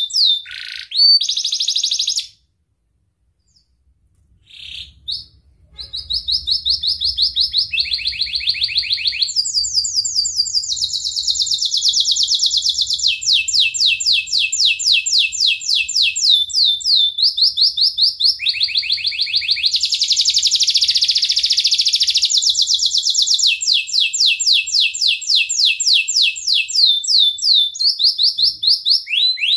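Domestic canary singing rapid high trills, each a fast run of one repeated note, switching to a new note type every second or two. About two seconds in the song stops for roughly three seconds, then resumes and runs on without a break.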